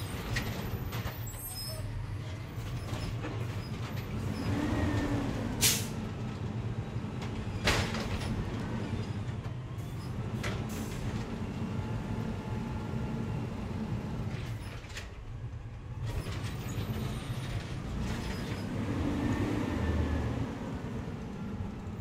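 Natural-gas Peterbilt side-loader garbage truck idling, its engine rising in pitch and falling back twice. Two short, sharp sounds come about six and eight seconds in.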